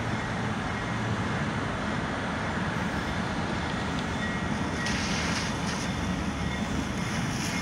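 Steady low rumble of an approaching train led by two GP38-2 diesel locomotives, mixed with road traffic. Tyre hiss from a passing car rises about five seconds in.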